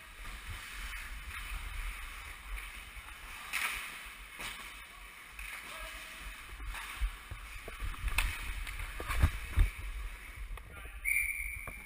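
Ice hockey play heard from a player-worn camera: skate blades scraping on the ice, with several sharp stick or puck knocks, the loudest about nine to ten seconds in. Near the end a referee's whistle blows briefly, stopping play.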